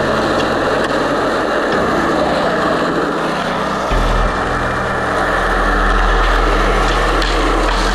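Skateboard wheels rolling over rough asphalt: a steady, gritty rumble. Underneath runs a low drone that shifts pitch twice, about two and four seconds in.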